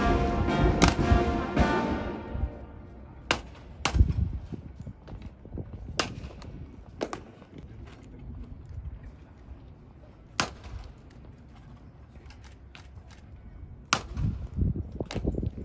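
Brass band music ends and rings away in the first two seconds. Then comes a scattering of single sharp knocks from the ceremonial guards' drill on cobblestones, with a quick run of thuds near the end.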